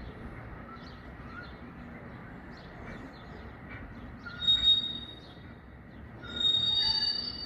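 Freight train rolling over the points with a steady rumble, its wheels squealing in high tones: briefly about four and a half seconds in, then louder and longer from about six seconds in.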